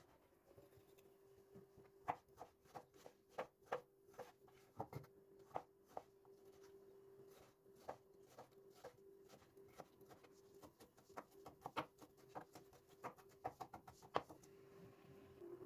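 Kitchen knife chopping a peeled tomato on a plastic cutting board: quick, irregular taps of the blade on the board, several a second, starting about two seconds in and going on until near the end. A faint steady hum runs underneath.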